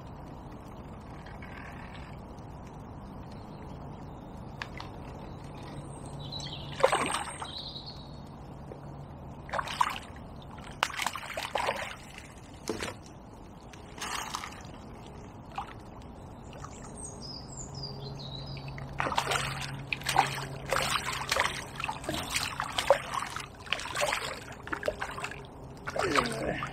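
A hooked tench splashing and swirling at the surface close to the bank as it is played. The splashes come now and then at first, then come thick and fast near the end as the fish is drawn over the landing net. A bird chirps briefly in the middle.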